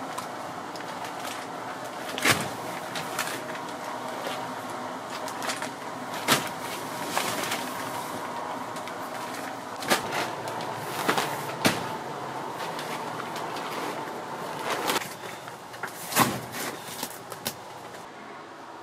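Heavy plastic sacks of dry dog food being handled, slid and set down on a van's metal cargo floor, giving a handful of irregular thuds and knocks over a steady hum.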